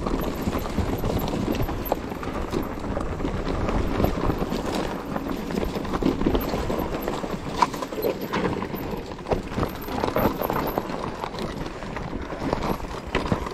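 Mountain bike rattling over a rough trail on a descent: a steady run of irregular knocks and clatter from the bike and its tyres on the ground.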